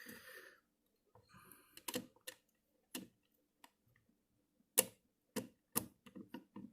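Scattered small plastic clicks and taps, about eight in all and irregularly spaced, as the parts of an Nvidia Shield TV 2017 game controller are handled and fitted back together.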